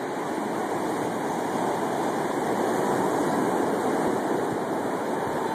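Ocean surf on a beach: a steady rushing of breaking waves that swells a little in the middle.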